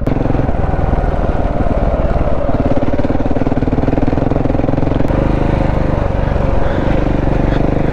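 KTM enduro motorcycle's engine running steadily under way as it is ridden along a dirt track, the note swelling somewhat between about two and four and a half seconds in.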